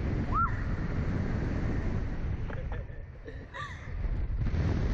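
Wind rushing over the microphone as the Sling Shot ride's capsule swings through the air, easing briefly a little past the middle. Two short high squeals from the riders, one near the start and one about three and a half seconds in.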